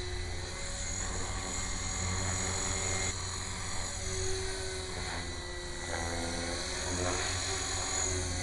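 Electric 450-size RC helicopter (HK450GT with an Align 430XL brushless motor) in aerobatic flight: a steady motor and rotor whine whose pitch shifts up and down now and then.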